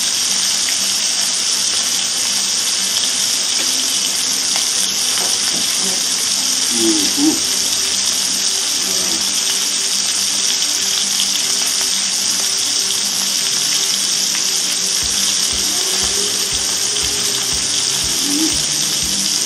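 Duck breasts sizzling in their rendered fat in a frying pan, a steady hiss.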